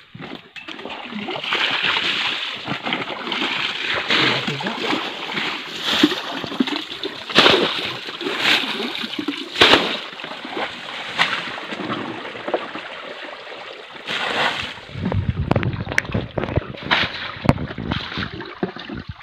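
Water splashing and sloshing again and again as plastic buckets are scooped into a shallow stream pool and emptied out, bailing the pool dry to expose the shrimp hiding under the stones. A low rumble runs for a couple of seconds late on.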